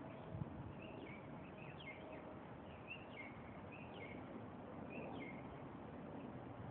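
Birds chirping faintly: a string of short, high chirps, some sliding down in pitch, over a low background hum of outdoor noise.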